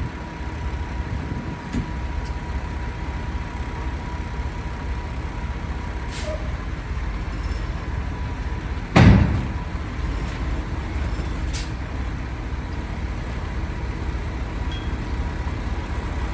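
Heavy truck's diesel engine running steadily at idle, with a loud sudden thump about nine seconds in.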